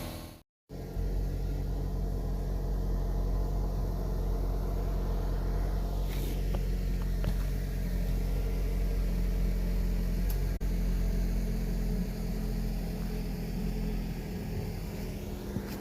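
An engine running steadily with a low rumble after a short break about half a second in, with a few faint ticks over it.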